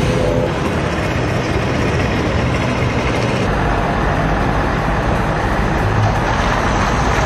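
Steady rumble and road noise of motor traffic. The low part of the rumble changes about three and a half seconds in.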